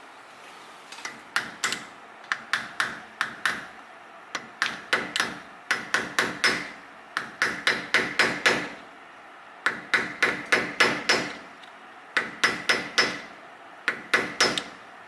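Hammer tapping on metal in quick runs of four to six blows with short pauses between, bending the lock-washer tabs over the wheel-bearing spindle nut of a Toyota solid front axle. Each blow rings sharply.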